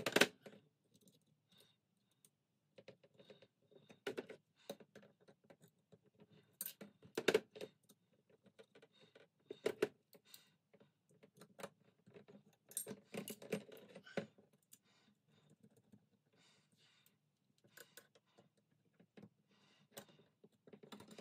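Scattered faint clicks and light metallic taps as pliers, a small screwdriver and screws are worked by hand against a metal camera mounting plate, with a busier run of taps a little past the middle.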